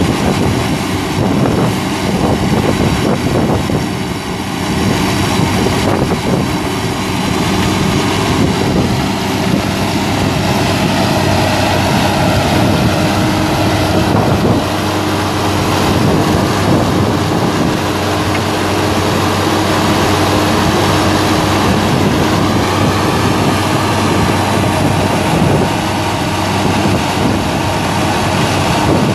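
Cummins L10 turbo diesel engine of a bucket truck running steadily with the PTO engaged, powering the boom hydraulics.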